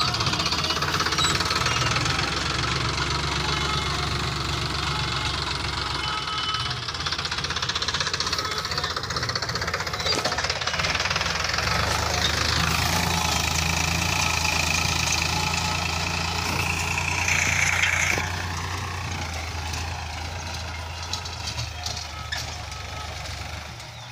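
Sonalika tractor's diesel engine running steadily under load as it pulls a tined seed drill through the soil, getting fainter over the last several seconds as the tractor moves away.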